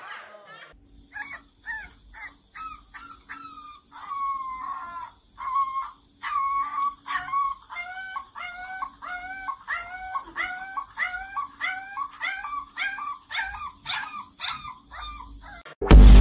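Husky puppy howling in a long series of short rising-and-falling calls, coming faster and more evenly, about two a second, in the second half. Loud electronic music cuts in right at the end.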